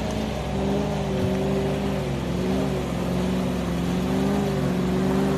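Land Rover Discovery's engine running under load in mud, its revs rising and falling over and over as the throttle is worked.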